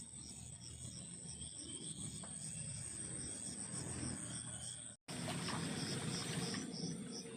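Insects such as crickets chirping in a steady chorus: a high continuous drone with evenly repeating chirps over it, and a low rumbling noise underneath. The sound cuts out for a moment about five seconds in.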